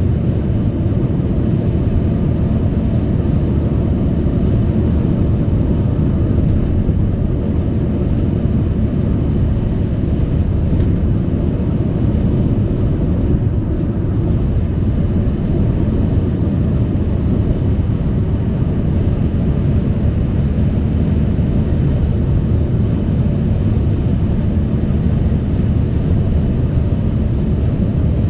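Steady low rumble of a car driving at speed, road and engine noise unchanging throughout.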